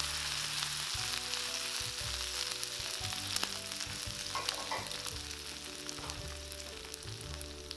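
Smoking-hot oil sizzling on dried red chilies and Sichuan peppercorns, a steady crackling hiss that slowly dies down.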